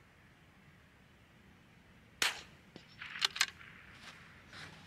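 .22 LR bolt-action rifle fired once about two seconds in, the crack trailing off briefly. About a second later come a quick pair of sharp clicks, then a few fainter ones.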